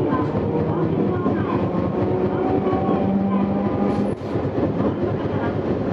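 Tosaden 700-series streetcar running, heard from on board: a steady rumble of wheels and motors with a faint whine, and a brief click about four seconds in.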